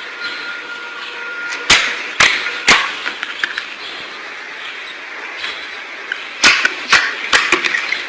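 Slime being squeezed and poked by hand, giving off sharp popping clicks: three about half a second apart around two seconds in, then a quicker cluster near the end, over a faint hiss.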